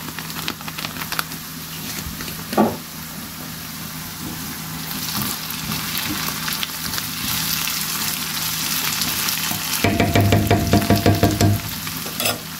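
Chopped onion, carrot and tomato paste sizzling and crackling in a frying pan while a wooden spatula stirs them. A louder rapid rattle lasts about a second and a half near the end.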